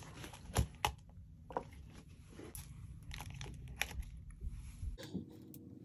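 Clear plastic binder and pouch with paper cash being handled: scattered light clicks and crinkles.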